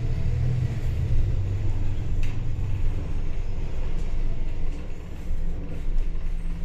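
City bus engine running with a steady low rumble of engine and road noise, heard from inside the moving bus. A few short knocks or rattles come through, about two, four and six seconds in.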